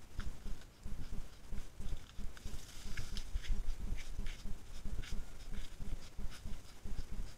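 Giant anteater clawing at the bark of a pequi tree trunk while trying to climb it, a behaviour used to mark territory: a run of short, irregular scratches, thickest in the middle, over low, irregular thumping.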